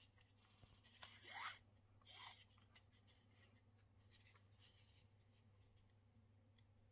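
Faint swish of a needle and thread being drawn through the wrapped-thread surface of a temari ball, twice, about a second in and again near two and a half seconds, the first rising in pitch. Then faint light scratching and ticking of the needle against the thread base.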